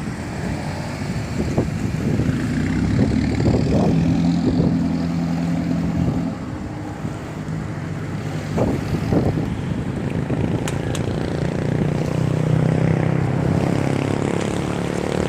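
An engine running with a steady drone, swelling and easing a little, with a few scattered knocks.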